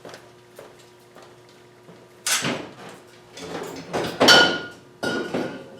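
Metal tools being handled and set down on a workbench: a few clattering knocks about two seconds in and again around four and five seconds, the loudest leaving a brief metallic ring.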